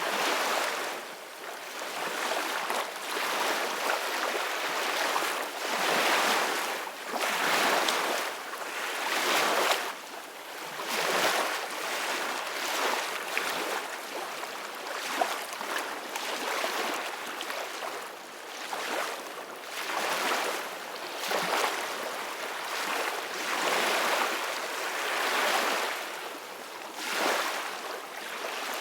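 Ocean waves breaking and washing on a shore, a steady rush of surf that swells and ebbs every couple of seconds.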